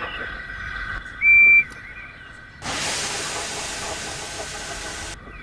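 Steam locomotive sound effects: a short high whistle blast about a second in, then a steady hiss of escaping steam lasting about two and a half seconds that stops abruptly.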